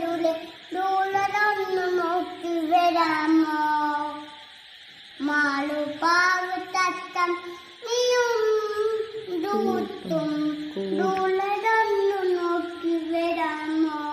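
A toddler singing a song in long, held phrases, with a short pause for breath about four seconds in.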